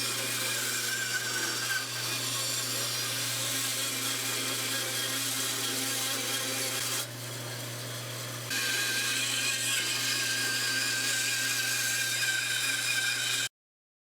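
Bandsaw running and cutting through wood: a steady motor hum under a hissing cutting noise. A little past the middle the cutting noise drops for about a second and a half while the motor keeps running, then the cut resumes. The sound stops abruptly near the end.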